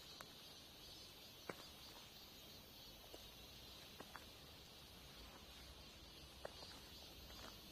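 Near silence: a faint, steady high insect drone of woodland, with a few soft, scattered clicks and knocks.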